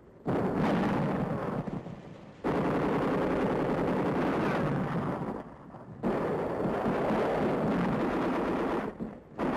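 Automatic gunfire in three long bursts of two to three seconds each, with short pauses between them.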